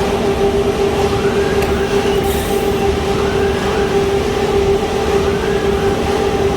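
Automated corrugated cardboard production line machinery running: a steady loud hum with a strong fixed tone, a whine that rises and falls about every one and a half seconds, and a short high hiss about two seconds in.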